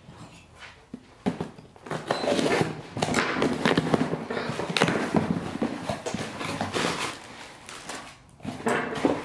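A cardboard shipping box being torn open by hand: flaps ripped apart and packaging rustling, with irregular scrapes and sharp clicks, starting about a second in and easing off near the end.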